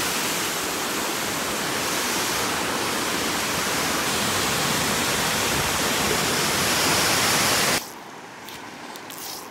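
Steady rushing of a small waterfall pouring into a rock pool. Near the end it cuts off suddenly to the much quieter sound of a shallow stream.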